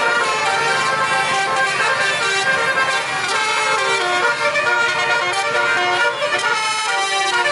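Bus 'telolet' multi-tone horn playing a melody of held notes that change pitch every second or so, with music underneath.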